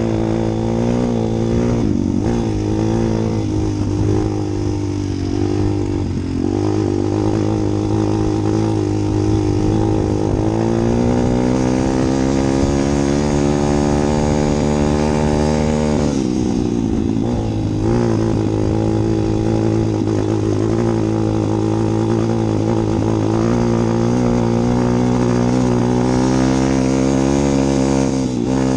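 An engine running continuously, its pitch dipping and climbing back up several times.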